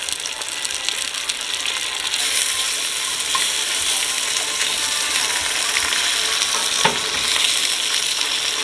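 Onions and veggie dogs sizzling in a cast-iron frying pan, the hiss getting louder about two seconds in. A wooden spatula stirs the pan, with a couple of light knocks against it.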